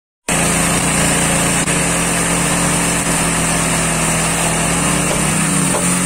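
Petrol-engined abrasive rail saw running at full speed, its cutting disc grinding through a steel rail. A steady engine note with a high, hissing grind over it, starting just after the beginning.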